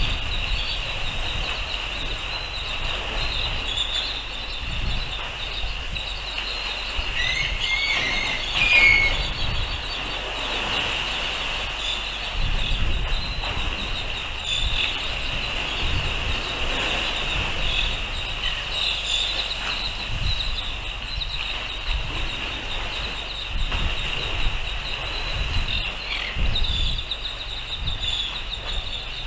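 Wind buffeting an outdoor microphone in uneven low gusts, over a steady high-pitched hiss with scattered short chirps.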